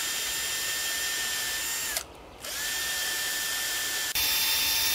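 Cordless drill-driver boring a hole into a birch trunk to tap it for sap. The motor whines steadily, stops briefly about two seconds in, starts again, and near the end drops in pitch and gets louder.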